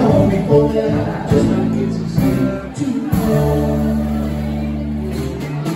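Live band of electric and acoustic guitars, electric bass and drum kit playing a rock cover. About halfway in, a low chord is held steady for about two seconds.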